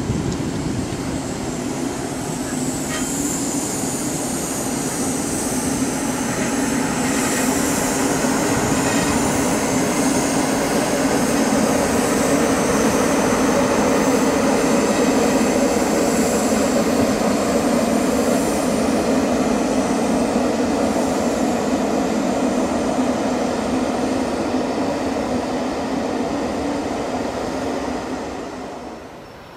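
Matterhorn Gotthard Bahn car-shuttle train, an electric locomotive hauling a passenger coach and flat car-carrying wagons on metre-gauge track, rolling past with a steady rumble of wheels on rails. A thin high wheel squeal sounds over it for roughly the first ten seconds, and the rumble dies away near the end as the last wagon goes by.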